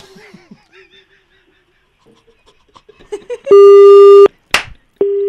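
Telephone busy tone after the other party hangs up on the call: two long beeps at one steady pitch, about a second and a half apart, the first very loud, with a short click between them.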